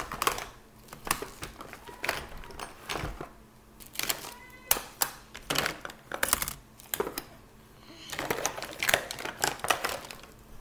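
Small plastic makeup containers clicking and clattering, with rustling, as they are rummaged through by hand: a quick, uneven run of sharp clicks throughout.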